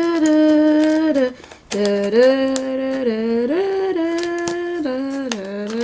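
A voice singing a wordless tune in held notes that step up and down, with short clicks and crackles throughout from plastic RAM packaging being worked open by hand.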